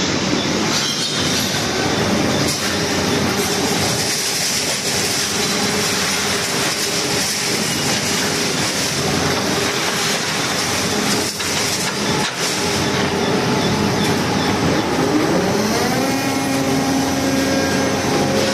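Scrap-metal baler and grapple loader at work: a steady din of heavy hydraulic machinery with scrap metal clanking and squealing, and a couple of sharp knocks about two-thirds through. Near the end a motor's pitch rises and then holds steady.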